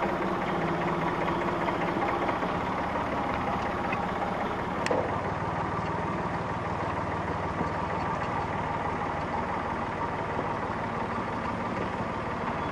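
Tractor engine running steadily at a low, even speed, with a single brief click about five seconds in.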